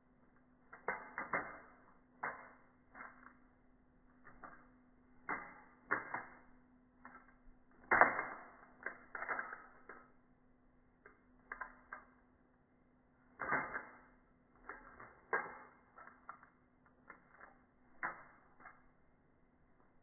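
Benchmade 51 butterfly knife being flipped, its handles clacking together and against the blade in a series of irregular sharp clicks, the loudest about eight seconds in.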